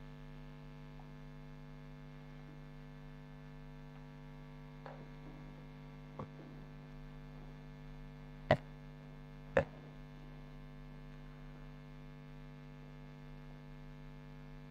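Steady low hum, with a few short sharp taps; the two loudest come about eight and a half and nine and a half seconds in.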